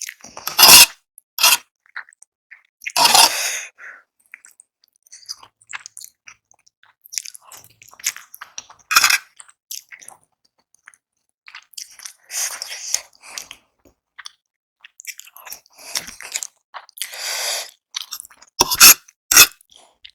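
Close-miked mouth sounds of a person eating spicy Korean instant noodles and boiled eggs: chewing and biting in irregular bursts with quiet gaps between, a few of them much louder than the rest.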